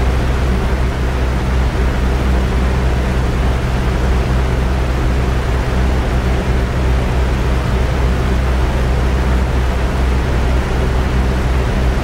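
Steady, unchanging white noise, heaviest in a deep low rumble with a faint hiss above.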